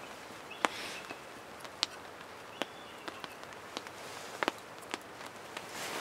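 Wood campfire crackling with irregular sharp pops, while split firewood is laid onto it, with a brief rustle of wood being set down shortly after the start.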